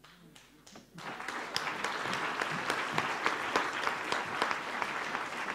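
Audience applauding: a few scattered claps, then full applause building about a second in and holding steady.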